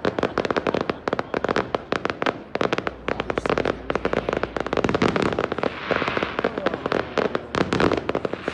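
Fireworks display: a dense, continuous volley of sharp crackling pops, many every second, like a back being cracked at the chiropractor.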